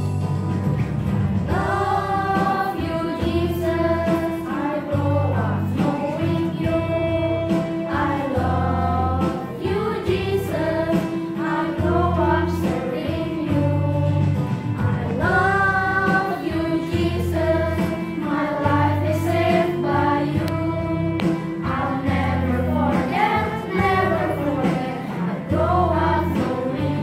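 A children's choir singing a worship song over an instrumental accompaniment with a steady bass line; the voices come in about a second and a half in.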